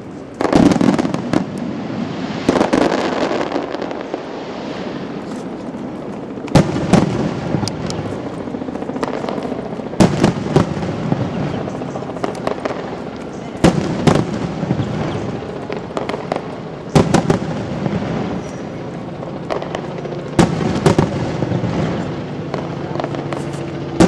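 Aerial fireworks shells bursting, a loud bang every three to four seconds, each followed by crackling and the echo rolling on.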